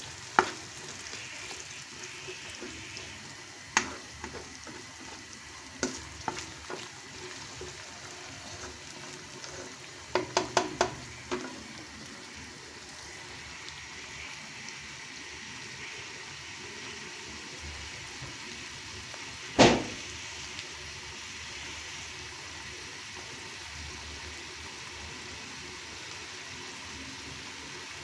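Diced potatoes and onion sizzling as they fry in oil in a kadai, with a steady hiss. A cooking spoon clacks against the pan now and then: a quick run of four knocks about ten seconds in and one loud knock near twenty seconds.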